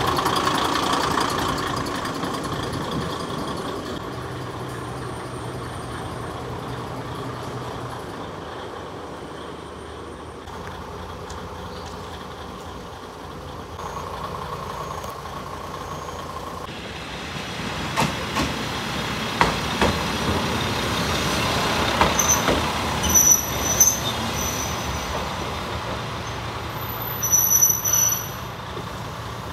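Kominato Railway KiHa 200 diesel railcar idling at a station platform: a steady engine rumble, with a series of short clicks and knocks in the second half.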